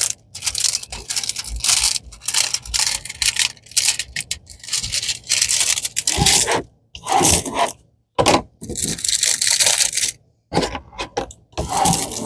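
Plastic packaging of a diamond painting kit being handled and torn open: irregular rustling, crinkling and scraping strokes with brief pauses between them.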